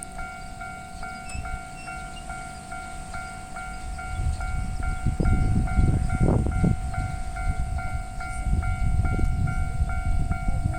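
Japanese railway level crossing alarm bell ringing steadily, about three strikes a second, while a train rumbles through the crossing from about four seconds in, loudest around six seconds.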